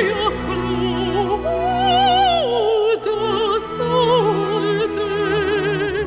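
A woman's operatic voice singing with wide vibrato, sliding down to a lower note about halfway through, over low held accompaniment notes.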